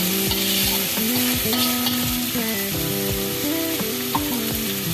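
Garlic chives, garlic and chilli stir-frying in oil in a wok: a steady sizzle while a metal spatula stirs and scrapes them around the pan.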